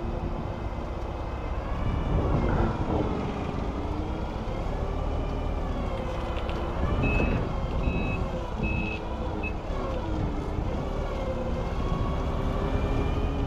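Propane forklift engine running, its speed rising and falling as it maneuvers. About halfway through, its reversing alarm beeps four times.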